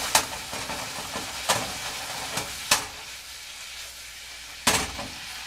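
Chicken, peppers and onions sizzling in a hot pan as the fajita seasoning-and-water sauce cooks down and thickens. A cooking paddle knocks against the pan four times while stirring.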